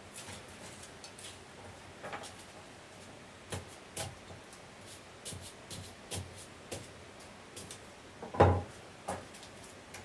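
Irregular light knocks and clicks, like objects being handled and set down, with one louder knock about eight and a half seconds in.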